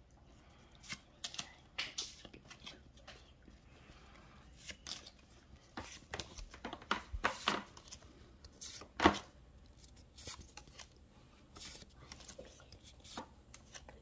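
Pokémon trading cards being flicked through by hand: short dry snaps and slides of card against card, irregular, with one sharper snap about nine seconds in.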